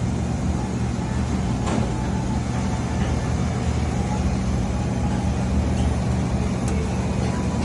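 Steady low mechanical hum of running machinery, with a couple of faint clicks.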